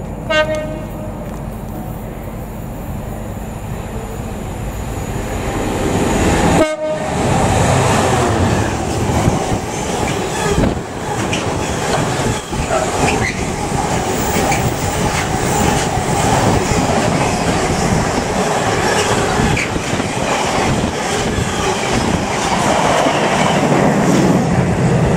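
Class 66 diesel locomotive heading a container freight train, giving short horn blasts near the start and again about seven seconds in. After that, the container wagons rumble past close by with a continuous rattling clatter of wheels over the rails.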